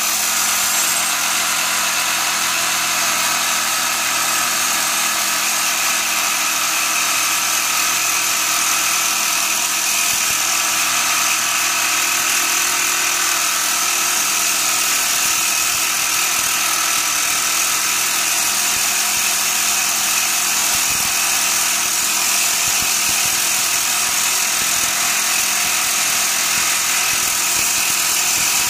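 Sawzall reciprocating saw, fitted with a dull blade, running steadily without a break as it cuts through a rusted, seized sway bar end link bolt and spacer.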